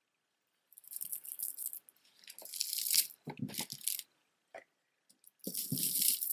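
Stone and glass beaded necklaces being handled, beads rustling and clicking against each other in several short bouts.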